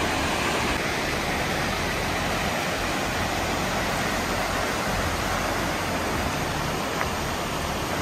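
Fast-flowing mountain river rushing alongside: a loud, steady wash of water noise.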